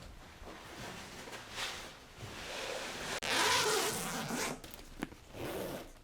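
A series of short rasping, scraping noises, the longest and loudest starting right after a sudden cut about three seconds in.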